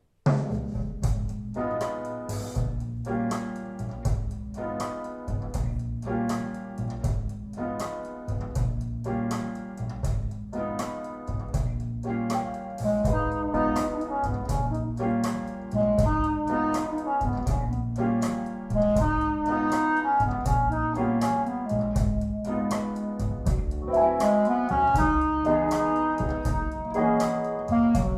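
Instrumental jazz starting suddenly after a silence: brass and piano over a drum kit, with a steady beat about once a second, getting busier in the second half.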